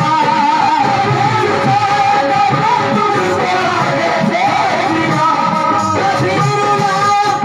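Qawwali music: a male voice sings long, wavering, ornamented held notes over harmonium accompaniment.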